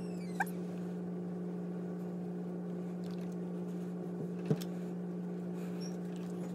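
Steady low hum with a few overtones, with a short rising squeak about half a second in and a faint tap about four and a half seconds in.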